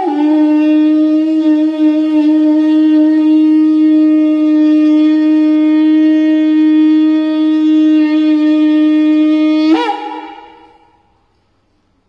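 Eland-horn shofar blown in one long, steady note of about ten seconds, which breaks briefly near the end and then fades away.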